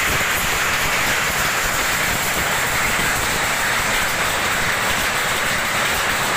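Lappet weaving loom running at speed, a loud, steady, fast mechanical clatter.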